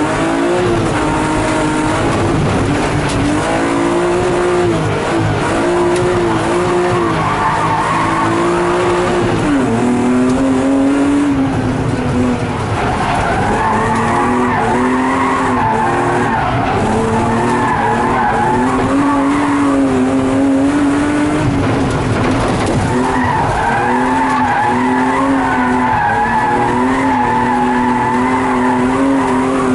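BMW E36 race car's engine heard from inside the cabin, pulling hard with its pitch repeatedly rising and dipping as the car is driven through the course, with tyres skidding in the slides.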